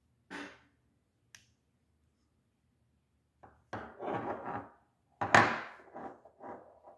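A Gerber flipper pocket knife being handled: two short clicks early, then two clusters of clattering and clicking, the sharpest click about five seconds in.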